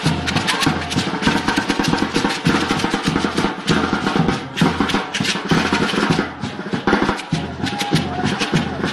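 Several drums played together in a fast, driving dance rhythm: rapid sharp strokes over repeating deep drum beats.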